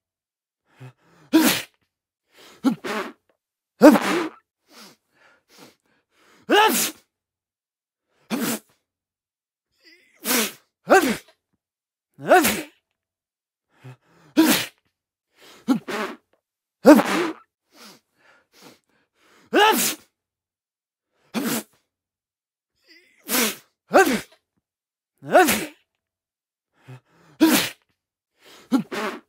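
A man sneezing again and again: a string of separate, short sneezes, each a second or two apart, with silence between them.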